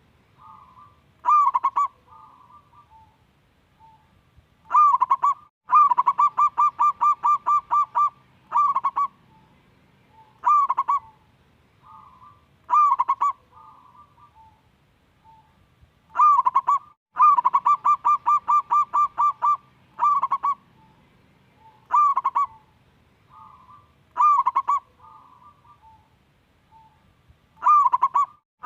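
Zebra dove (perkutut) singing: short coos spaced a second or two apart, and twice a rapid run of about a dozen clipped, evenly spaced notes.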